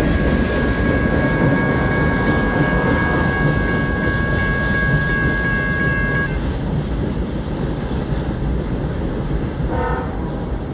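Rumble of freight cars rolling past and drawing away. Over it the lead locomotive's distant Nathan K5HL five-chime air horn holds a steady chord, which cuts off about six seconds in.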